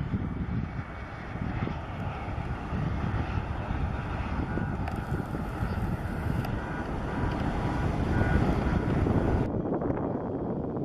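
Airliner engine noise: a heavy, low rush that swells to its loudest about eight seconds in, with wind on the microphone. The higher part of the sound drops out abruptly near the end.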